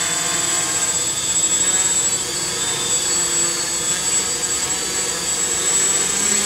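XAircraft X650 V4 quadcopter hovering in place, its four electric motors and propellers giving a steady buzzing drone of several tones that waver slightly as the motor speeds adjust. A thin, steady high whine sits over it.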